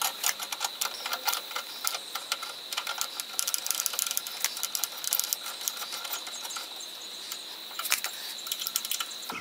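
Irregular metallic clicking and clacking as a Kuryakyn mini floorboard is handled and folded on its spline adapter mount, with one louder clack about eight seconds in. A faint steady high tone runs underneath.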